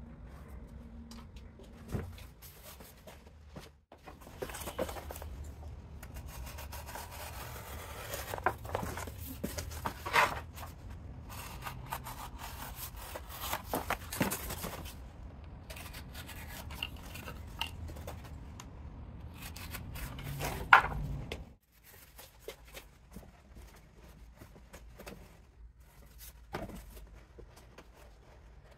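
Cardboard being handled: rubbing, scraping and tearing, with scattered taps and a sharp knock about two-thirds of the way in.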